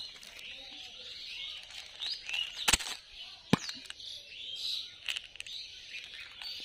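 A plastic football-shaped candy capsule is handled and snapped open, with two sharp clicks a little under a second apart near the middle. Birds chirp steadily in the background.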